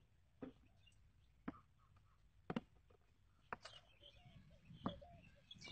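Bottles set down one at a time on a tabletop: faint, short knocks about once a second.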